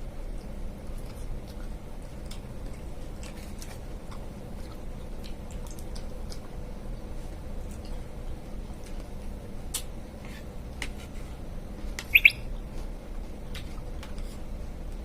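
Quiet eating sounds: scattered small clicks and smacks of someone chewing soft mixed fruit and sabudana. About twelve seconds in comes a brief, loud, high two-part chirp.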